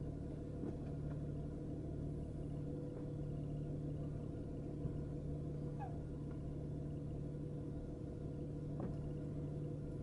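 Car idling, heard as a steady low hum from inside the cabin.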